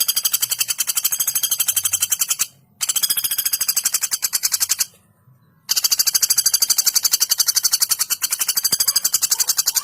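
Female common flameback woodpecker (pelatuk bawang) giving its fast, tightly spaced rattling call in three long runs, with short breaks about two and a half and five seconds in.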